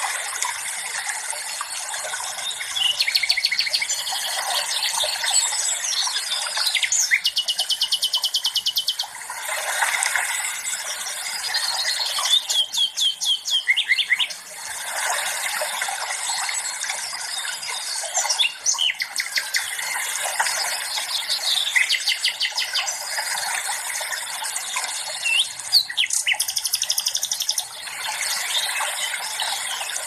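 Songbirds singing, with fast high trills and chirps coming every few seconds, over a steady hiss of running water.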